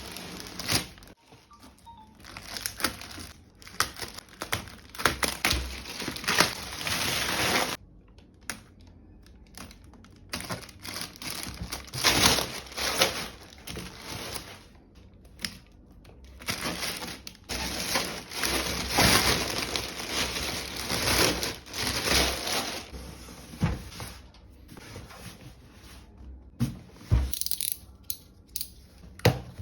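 Packaging of a PC case being handled and opened: irregular crinkling, tearing and rustling with occasional knocks. It drops out abruptly for a moment about eight seconds in.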